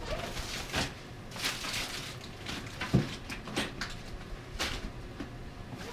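Kitchen handling noises: scattered knocks and clatters with rustling, as of cupboards and cookware being moved, the heaviest a thump about three seconds in.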